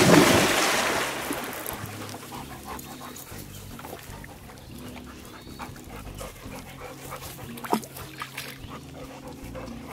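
A yellow Labrador retriever leaps into a pond with a loud splash that fades over about a second, then swims with small splashes in the water, with one sharper splash near the end.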